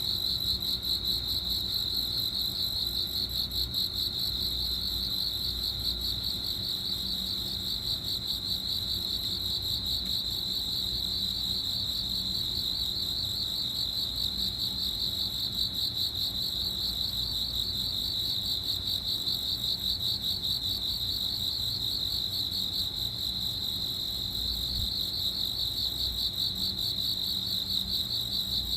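Crickets chirping continuously, a steady high trill with a rapid pulse.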